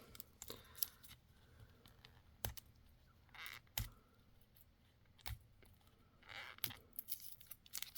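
Faint handling of a sealed plastic packet while trying to peel it open at the seam: scattered light clicks and taps with two brief soft crinkles.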